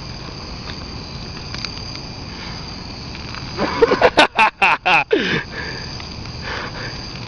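Crickets chirping steadily. About three and a half seconds in, a burst of excited voices, rapid yelps or laughter, lasting about two seconds.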